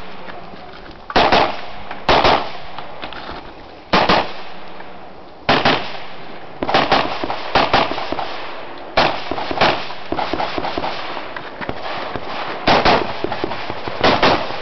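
Rifle shots in a practical rifle stage: about a dozen sharp cracks at uneven intervals, some single and some in quick pairs, each followed by a short echoing tail.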